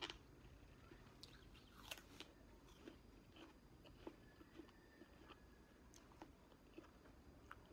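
Faint chewing and biting of juicy fruit pieces, with soft crunches and scattered sharp mouth clicks, the sharpest right at the start and about two seconds in.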